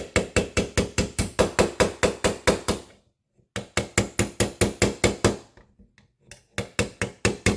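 Small hammer tapping quickly on a pin punch, about six or seven taps a second, driving a roll pin out of a CZ P10F pistol frame. The taps come in three runs with two short pauses.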